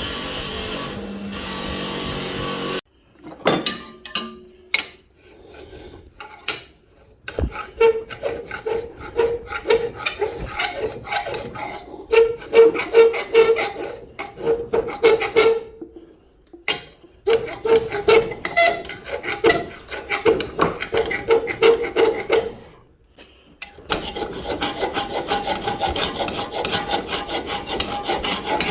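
Hand-forged steel scraper drawn in quick repeated strokes, a rasping scrape with each stroke. It breaks off abruptly several times between short stretches of scraping.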